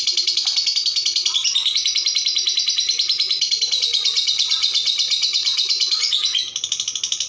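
Lovebird singing a long ngekek: a rapid, unbroken string of high chattering notes, about ten a second, held without a pause, a little softer near the end.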